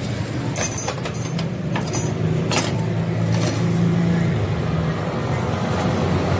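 An engine running steadily, with several sharp clicks or taps in the first few seconds.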